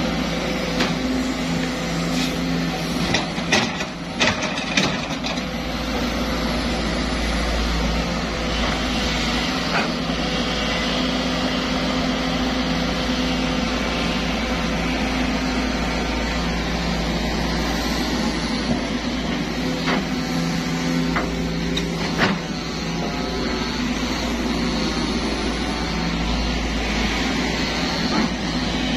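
Diesel engine of a Sumitomo SH210-5 hydraulic excavator running steadily at working revs as it digs. Several sharp knocks come about three to five seconds in, and another about twenty-two seconds in.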